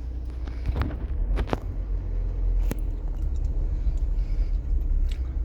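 Low steady rumble of a car driving, heard from inside the cabin, with a few faint clicks.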